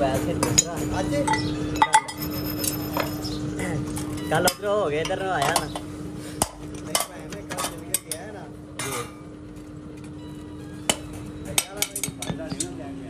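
Clinks and knocks of hand tools against a steel sand-casting flask, with sand being scraped and brushed off the mould. The knocks come irregularly over a steady hum.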